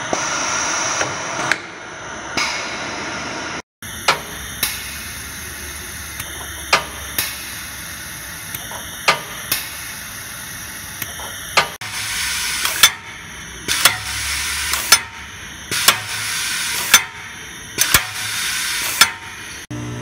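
Pneumatic air cylinders on a Conair Franklin GB Series gravimetric batch blender clacking as they work, each clack followed by a short hiss of air. The strokes come irregularly, about once a second, and grow louder with longer hisses in the second half, after a steady hiss at first.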